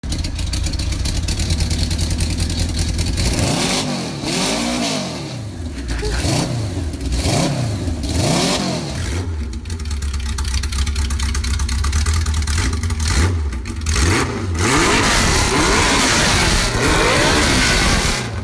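Late-1970s Honda Gold Wing GL1000 flat-four motorcycle engine in a homemade dune buggy, running loud and being revved in several blips that rise and fall in pitch, then running steadily with more revs near the end. The engine has just been brought back to running after sitting dead.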